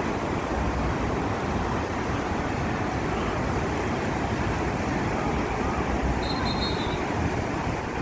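Strong sea wind rushing and buffeting the microphone, over a steady roar of surf breaking on the beach.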